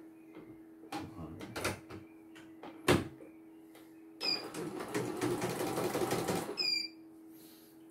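Clicks and a sharp knock as the hoop is fitted onto the carriage of a CNY portable computerised embroidery machine. A button beep follows, then the machine runs for about two and a half seconds with a dense rapid ticking, and it stops with a second beep.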